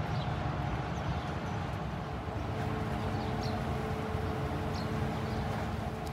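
Steady low rumble of a vessel's engine with a steady machinery hum, the hum growing stronger about two and a half seconds in. A few faint, short high chirps come through now and then.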